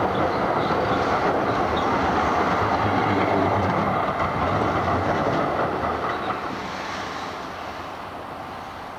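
Amsterdam GVB articulated tram rolling past close by on street track, its wheels clacking and running on the rails. It is loudest about three seconds in, then fades as it moves away.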